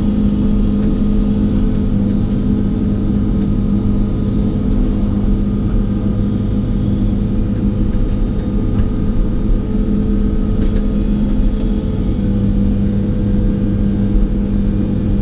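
Excavator's diesel engine running at a steady speed, a constant loud hum that holds the same pitch throughout.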